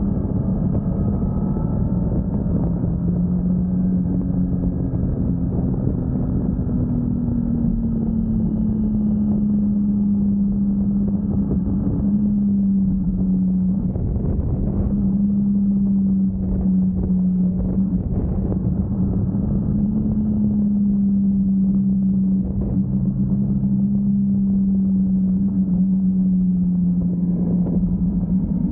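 Motorcycle engine running at a steady cruising speed, its drone holding one pitch that drifts slightly up and down, over a constant rumble of wind and road noise on a wet road.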